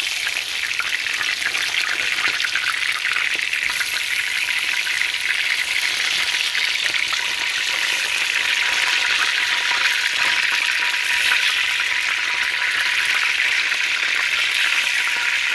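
Breaded mahi mahi fish fingers deep-frying in hot oil in a cast-iron skillet: a steady, dense crackling sizzle. The oil is hot enough that the breading cooks rather than soaking up oil.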